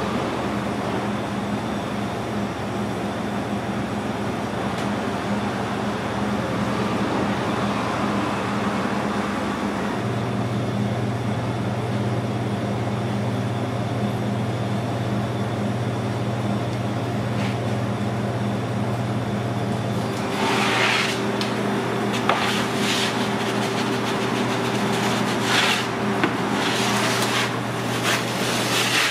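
Steady low mechanical hum of kitchen equipment, its pitch shifting a couple of times. Over the last several seconds a wooden pizza peel scrapes and knocks against a pizza deck oven in a string of short sounds.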